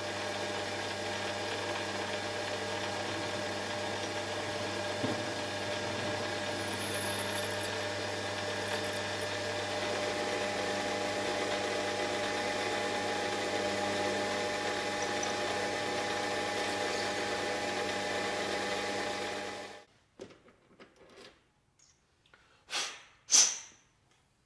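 Electric power tool or machine running steadily with an even motor hum for about twenty seconds, then switching off. A few sharp knocks follow near the end.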